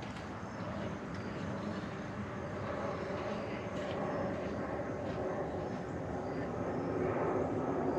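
A steady engine drone that grows gradually louder.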